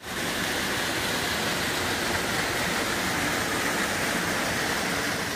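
Spring water pouring down a small rocky cascade and splashing at its foot: a steady rushing hiss.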